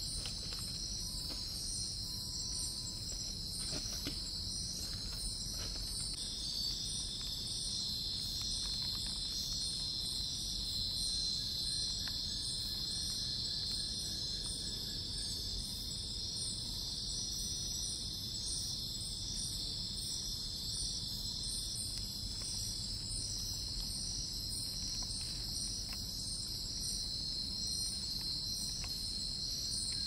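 Night-time tropical forest insect chorus: several insects trill steadily at a high pitch in overlapping layers, one with a fast pulsing rhythm. Another steady whine comes in about six seconds in and stops a little after twenty seconds.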